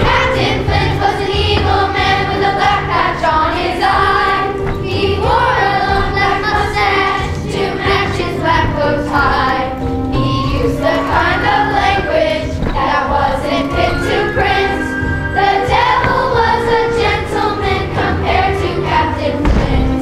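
A group of fifth-grade children singing a song together as a choir, over instrumental accompaniment with a steady bass line.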